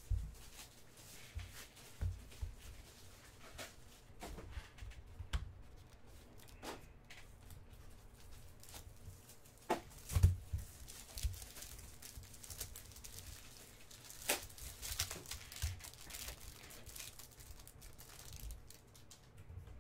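Foil trading-card pack wrapper being torn open and crinkled by hand, with scattered crackles and a few soft knocks as the cards are handled.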